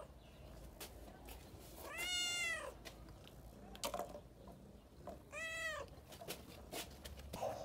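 Domestic cat meowing twice, a few seconds apart, each meow rising and then falling in pitch, with a few faint clicks between them.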